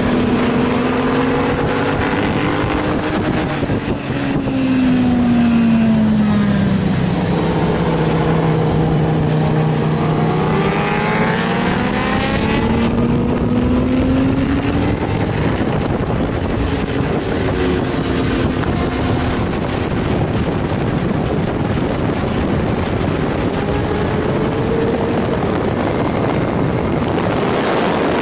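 Suzuki GSR's inline-four engine running hard under a heavy rush of wind noise on the bike-mounted microphone. The engine pitch falls about four seconds in, as if slowing for a corner, then climbs again from about ten seconds as it accelerates out.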